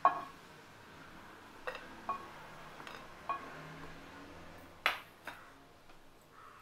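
Kitchen utensils knocking and clinking: a wooden spatula against the pan and plate as fried cashews are lifted out of hot ghee. About seven separate clicks, the loudest right at the start and about five seconds in, some ringing briefly.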